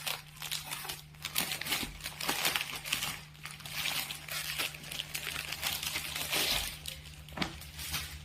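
Plastic packaging of a clothing set crinkling and rustling as it is torn open and handled, over a faint steady low hum.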